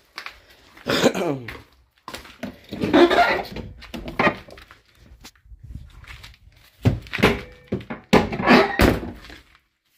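Rummaging in a small room: several thunks and knocks of objects being handled and moved, with quieter clatter in between.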